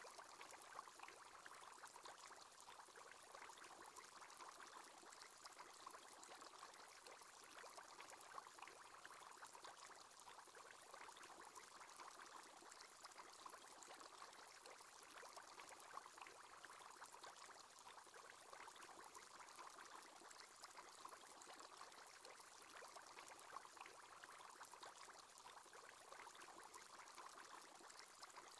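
Faint, steady bubbling of an aquarium aerator's bubble column: a continuous stream of tiny bubble pops with no change in pace.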